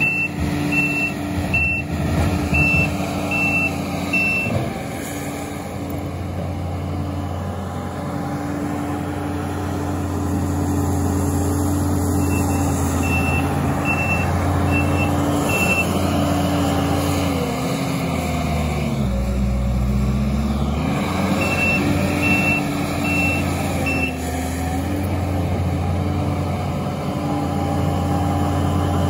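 Takeuchi TL8 compact track loader's diesel engine running steadily, with its reversing alarm beeping about twice a second in three spells as it backs up. A little past the middle the engine pitch sags for a few seconds, then recovers.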